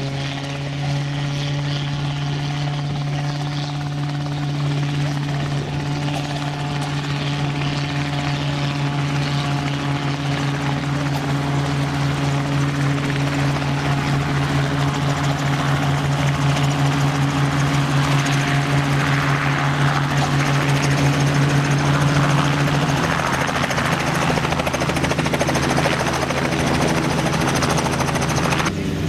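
Robinson R44 helicopter hovering low, a steady drone of its rotor and piston engine. It grows a little louder through the middle and shifts in pitch a few seconds before the end.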